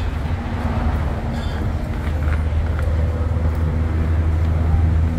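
A motor vehicle's engine running steadily, a low hum with a constant pitch that grows slightly louder toward the end.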